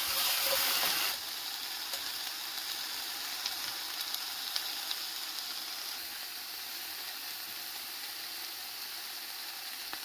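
Ribeye steak sizzling as it fries in a hot pan: a steady sizzle, louder for about the first second, then settling, with a few faint pops in the middle.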